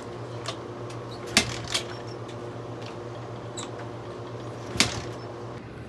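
Kawasaki KLX110 pit bike being kick-started: two sharp clacks from the kickstarter, about a second and a half in and again near the end, over a steady low hum. These are starting attempts with the idle adjustment screw backed out one turn on a bike that won't idle properly.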